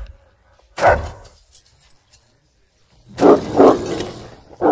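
Dog barking in short, separate barks: one about a second in, two quick ones just after the three-second mark, and another at the very end.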